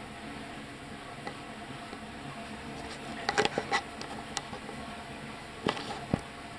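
Koi slurping and splashing at the pond surface: a quick cluster of sharp wet pops about halfway through and another near the end, over a steady background hiss.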